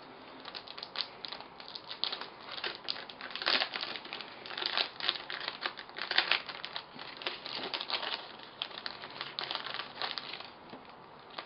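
Clear plastic packaging bag crinkling as hands handle and open it to take out a stencil and pencil, in many irregular crackles.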